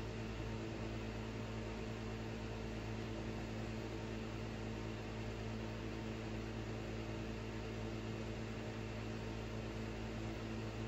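Steady hum over a low, even hiss, unchanging throughout, with no distinct knife or scraping strokes standing out.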